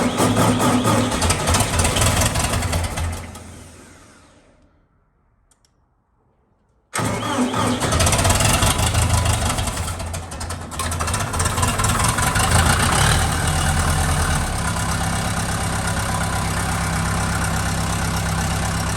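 Music fading out, then after a short silence a petrol engine starts abruptly and runs unevenly, settling a little past halfway into a steady idle.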